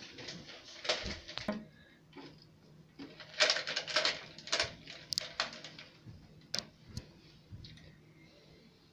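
Rustling and scattered sharp clicks of a hand rummaging in a plastic tub of chocolates, the busiest stretch in the middle.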